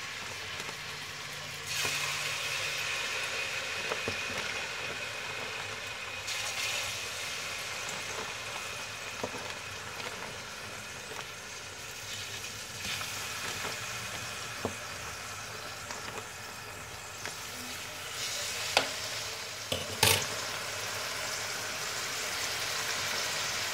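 Clear plastic zip-top bag crinkling and rustling as it is handled, with two louder crackles near the end.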